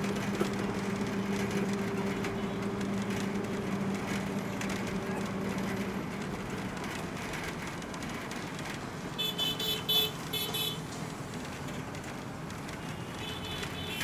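Road traffic heard from a moving vehicle: a steady engine hum and road noise. A high-pitched vehicle horn toots in several quick blasts about nine seconds in, and again just before the end.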